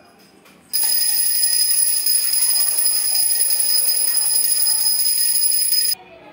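A bell ringing continuously with steady high ringing tones, starting abruptly about a second in and cutting off sharply near the end.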